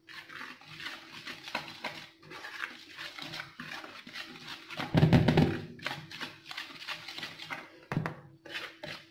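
Wire whisk scraping and ticking quickly through dry flour in a mixing bowl, a fast run of small scratchy strokes. About five seconds in, a brief louder low sound stands out.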